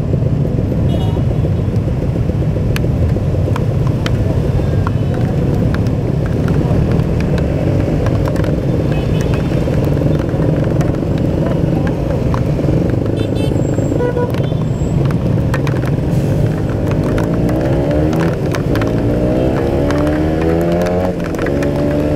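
Kawasaki Ninja 150 RR's single-cylinder two-stroke engine running while the bike is ridden, heard from inside the rider's helmet. Near the end its pitch rises as the bike accelerates.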